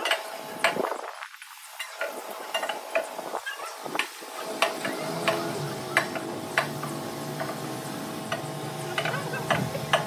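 Irregular sharp metal clinks and knocks, roughly one a second, as a heavy steel road-roller drum is pushed and levered with a steel bar. A steady background hum runs underneath, with a low drone joining about halfway.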